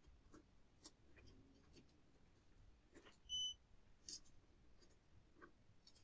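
One short, high beep from a digital multimeter a little past halfway, among faint clicks and scrapes of the test probes on the washer-dryer's heating-element terminals during a continuity check.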